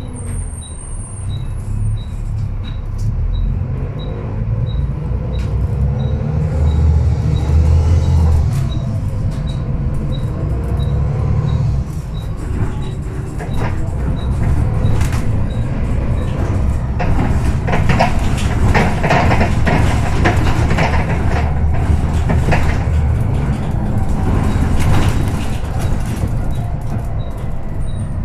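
Volvo B7TL double-decker bus's six-cylinder turbodiesel heard from inside the bus, driving hard and pulling through the gears, with the level rising and falling at each change. In the second half the interior panels and fittings rattle, and there is a faint ticking about every two-thirds of a second.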